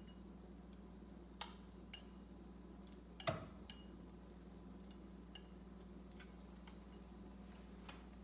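Chopsticks tapping and scraping against a bowl and a frying pan: a scatter of light clicks, the loudest about three seconds in, over a steady low hum.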